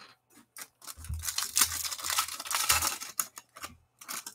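A foil trading-card pack being torn open by hand: a long crinkling rip from about one to three seconds in, with shorter crinkles of the wrapper before and after.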